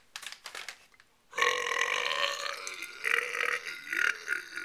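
A man's long, loud burp, drawn out for about three seconds, starting a little over a second in after a few small mouth clicks.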